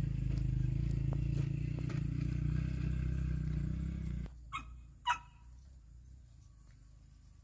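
A small engine running steadily, cutting off abruptly a little over four seconds in; two short animal calls follow.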